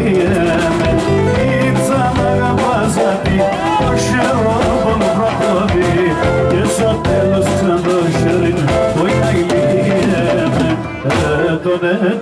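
Live band playing Greek folk music, with a melody line carried over keyboard and a steady drum beat; the drums drop out about eleven seconds in.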